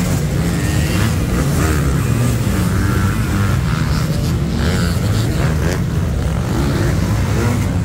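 A pack of motocross bikes' engines racing together, revving and rising and falling in pitch as the riders work the throttle over the track.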